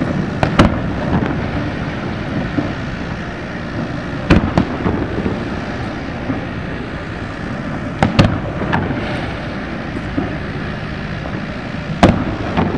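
Aerial firework shells bursting: sharp booms in four groups about four seconds apart, mostly in quick pairs, over a steady background rumble.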